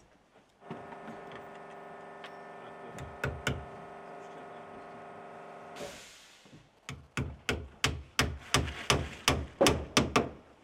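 A shingle hatchet's hammer face nails larch shingles to wooden roof battens. There are a few light taps, then in the second half a quick run of about a dozen sharp blows, roughly three a second, getting louder. Under the first half a steady, even-pitched hum runs and stops about halfway through.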